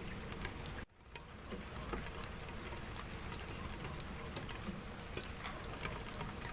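Steady rain, with individual drops ticking sharply against a hard surface. About a second in, the sound cuts out almost completely for a moment and then fades back in.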